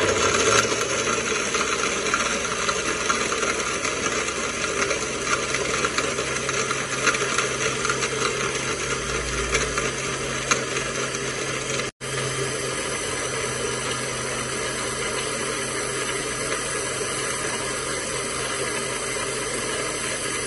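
Countertop electric blender with a glass jar running at speed, crushing ice cubes into a mint drink. It starts suddenly and runs steadily, and cuts out for an instant about halfway through.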